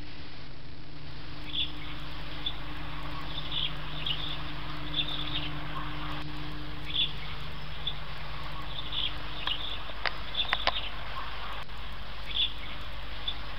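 Short, high bird chirps repeating every second or so over a steady low hiss, with a few sharp clicks about ten seconds in.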